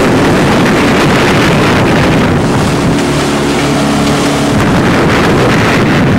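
Boat's outboard motor running steadily under way, with wind buffeting the microphone.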